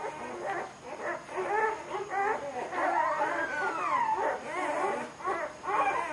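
Several puppies whimpering and yipping together in many short, overlapping high calls, with one longer arching whine about three seconds in.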